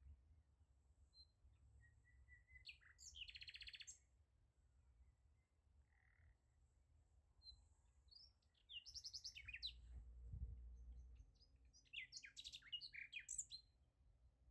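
Faint songbird chirping and trilling in three short phrases: about three seconds in, around nine to ten seconds, and near the end.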